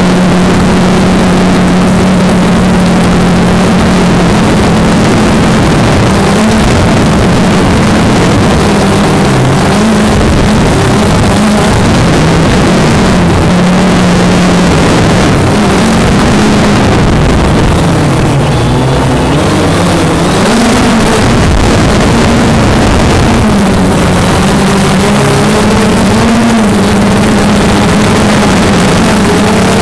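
A small multirotor drone's motors and propellers buzzing loudly up close, with a hum that holds steady at first and then wavers up and down in pitch from about nine seconds in as it manoeuvres, over a hiss of air noise.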